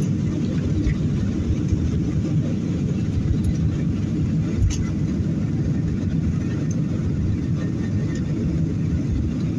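Steady cabin noise of a Boeing 737 airliner climbing out after takeoff, heard from a window seat: a constant low rumble of the jet engines and rushing air. A single brief click comes about halfway through.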